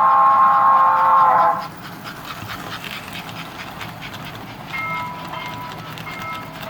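Model train engine's sound-chip horn blaring in several tones, sagging in pitch and cutting off about a second and a half in; it is a bigger horn than the engine's original, which the owner finds terrible. After that comes the quieter sound of the engine running along the track, with a fainter horn tone sounding in short pieces near the end.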